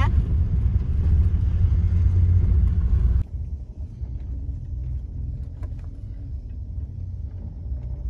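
Low rumble of a Toyota vehicle driving over desert dirt, heard from inside the cab. About three seconds in it drops suddenly to a quieter low rumble with a few faint clicks as the vehicle creeps along slowly.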